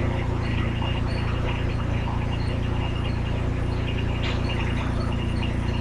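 An engine running at a steady idle, a low even hum with no change in speed.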